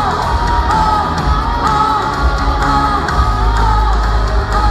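Rock band playing live in a concert hall, with singing over a heavy bass and drum sound and a high melodic figure that repeats about once a second.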